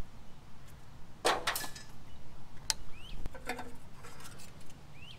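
Metal hand tools clinking and clattering against a Ford 351W V8 as it is stripped, a few separate clanks with a longer rattle about a second in and more clatter later.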